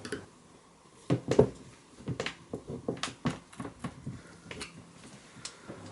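Scattered light clicks and knocks, about ten over a few seconds, from a hand tool being handled against a uPVC window frame.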